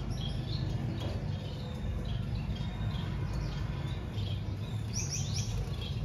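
Short, high finch chirps, repeated every fraction of a second, with a quick run of louder chirps about five seconds in, over a steady low hum.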